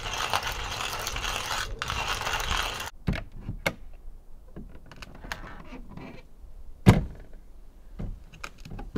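A hand coffee grinder being cranked, a dense grainy grind that stops abruptly about three seconds in. Then scattered clicks and knocks, with one loud thump near seven seconds, as the camper door is unlatched and swung open.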